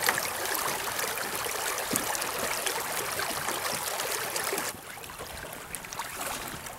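Creek water rushing and splashing, a dense steady wash with fine crackle that drops to a quieter level just under five seconds in.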